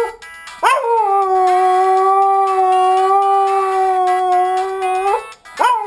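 Dog howling, set off by a phone alarm: one long howl that swoops up about half a second in and holds a steady pitch for about four and a half seconds. It lifts briefly at the end, and after a short break the next howl swoops up.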